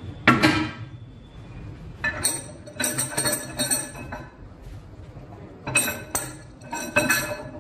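Steel camshaft clinking and scraping against the engine block as it is slid into its bores and turned by its timing gear. Sharp metallic clinks come in three clusters: just after the start, again around two to four seconds in, and near the end.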